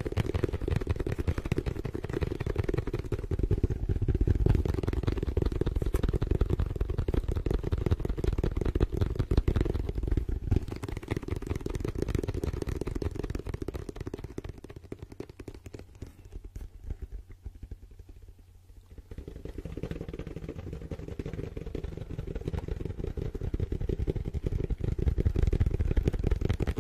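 Very fast fingertip tapping and drumming on a dark hard oval case held close to the microphone: a dense, continuous muffled rattle of taps. It thins out and quietens about fifteen seconds in, then builds back up about four seconds later.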